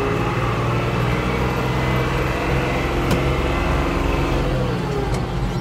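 Farm tractor engine running steadily under way, heard from inside the cab, with one short click about three seconds in.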